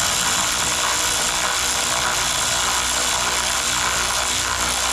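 Handheld power tool running steadily under load, driving a bolt in.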